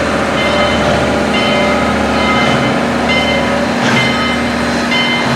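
Train running: a steady, loud rumble with short high ringing tones recurring about twice a second, and a steady lower tone joining about a second and a half in.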